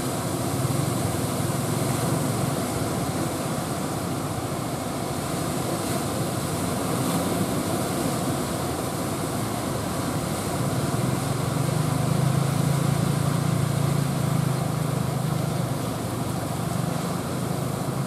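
Steady roar of big surf breaking on the beach, with a low engine drone that grows louder for a few seconds past the middle.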